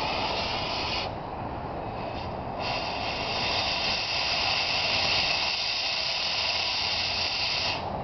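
Oxy-acetylene cutting torch hissing as it cuts into the steel of a backhoe bucket tooth. The hiss is strong for about the first second, eases off, then comes back louder and harsher from about two and a half seconds in until just before the end.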